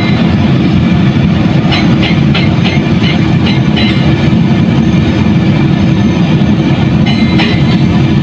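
Heavy machine's diesel engine running steadily, heard from inside its cab. A quick run of rattling clicks comes about two seconds in, and a shorter one near the end.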